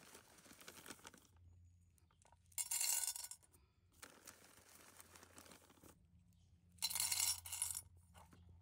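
Small pebbles poured into a glazed ceramic planter, clattering in two short bursts about three and seven seconds in, as a gravel drainage layer goes into the bottom of the pot.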